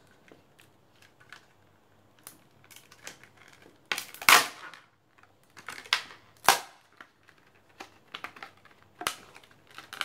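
Clear plastic clamshell packaging of a laptop RAM module being handled and prised open: scattered crackles and several sharp plastic snaps, the loudest about four seconds in.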